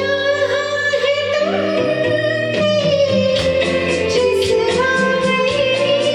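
A woman singing a long, sliding melody line over instrumental accompaniment, with regular struck beats joining about halfway through.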